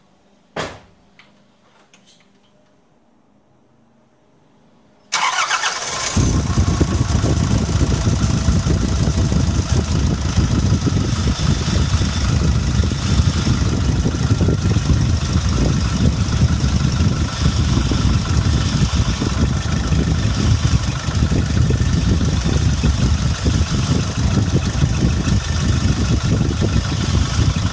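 Nissan Navara D22 pickup engine starting about five seconds in and then idling steadily, heard from beneath the vehicle. Before it, one sharp knock near the start.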